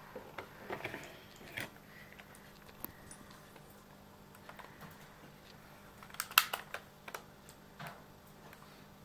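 Irregular clicks and taps of typing on a computer keyboard, with a louder quick flurry of clicks about six seconds in.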